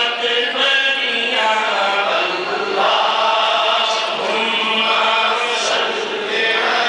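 A man chanting an Urdu naat, a devotional poem in praise of the Prophet, into a microphone, in a melodic reciting voice with long held notes and short breaks between phrases.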